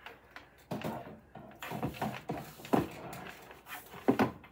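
Electrical cords and plugs being handled and threaded behind a monitor: irregular light knocks and rustles of plastic cable against the desk, with a couple of sharper knocks near the end.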